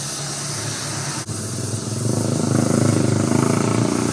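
Honda Beat scooter engine running, then revved so that it grows louder about two seconds in.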